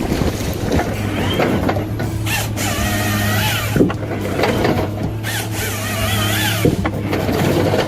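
Forestry harvester with a Log Max 7000 XT head at work: the machine's steady engine hum under a wavering high hydraulic whine that comes and goes, with clattering and a couple of sharp knocks from the head handling the log.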